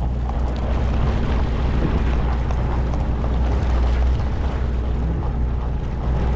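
Steady low rumble of a large fishing boat's engine, under an even rushing noise.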